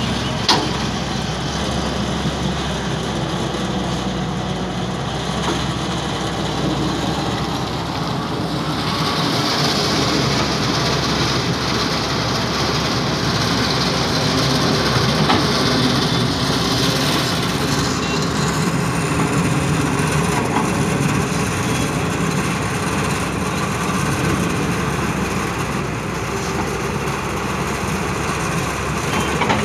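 Tata Hitachi crawler excavator's diesel engine running steadily under load while it digs and swings its boom, with a steady hiss joining for about ten seconds in the middle and a single sharp knock right at the start.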